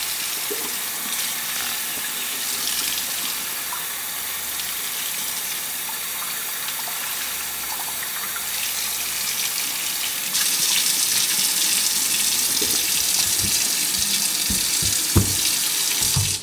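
Kitchen faucet running, its stream pouring over a leather holster and splashing into the sink. The water gets louder about ten seconds in, and a few soft knocks come near the end.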